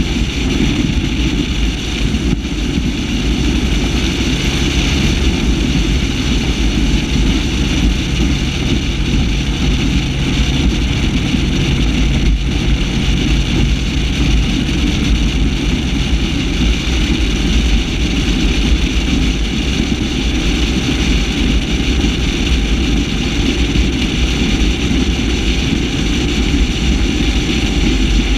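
Warlock 25 SXT catamaran powerboat under way on MerCruiser 496 HO big-block V8 power, the engine running at a steady cruise with an even, unchanging drone and a hiss of water and wind over it.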